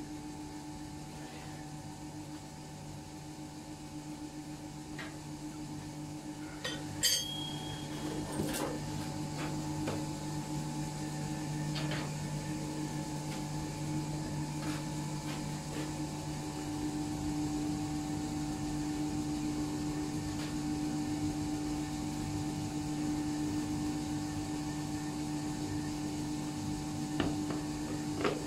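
Steady hum of a coal forge's electric fan, growing a little stronger past the middle, with scattered clinks and knocks of iron tools at the hearth; the loudest is a sharp metallic clink about seven seconds in.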